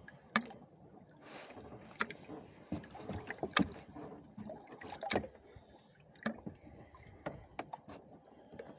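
Water sloshing and lapping against a small boat, with scattered sharp knocks and clicks at irregular intervals.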